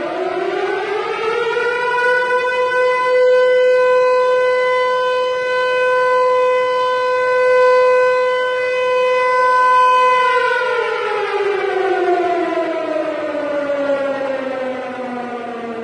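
Civil defense siren, the stock Hollywood recording attributed to a Harry O. Ricci Siro-Drone siren, sounding one wail: its pitch rises over about two seconds, holds steady for about eight seconds, then slowly falls.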